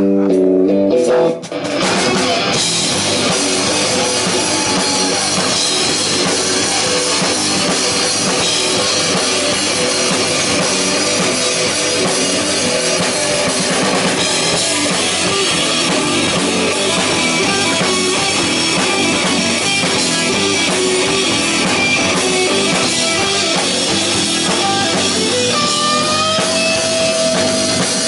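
Live rock band playing: an electric guitar picks a riff alone, then about a second and a half in the full band comes in with drum kit, electric guitars and bass guitar, playing on at a steady loud level.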